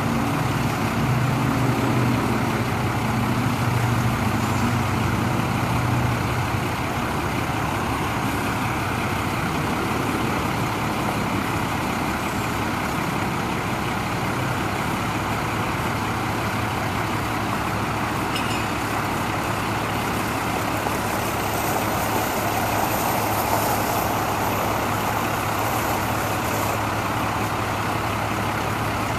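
A 1998 Ford F800's Cummins 5.9 L diesel engine running steadily to power the truck's bucket boom as the boom is raised. The engine is a little louder in the first six seconds.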